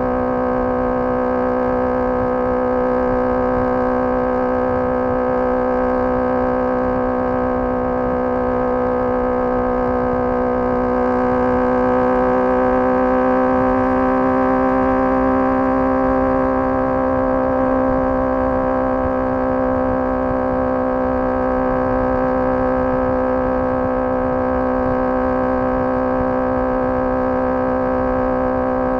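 Honda CBR650R's inline-four engine through a MIVV MK3 carbon aftermarket exhaust, cruising at highway speed with a steady note. The pitch rises slightly about eleven seconds in and eases back a few seconds later, with wind rumble on the microphone underneath.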